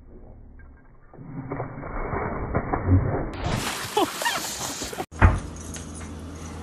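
Lake water splashing as a dog lands in it off a dock and churns about, with a person's voice rising and falling over it; a single loud thump follows near the end.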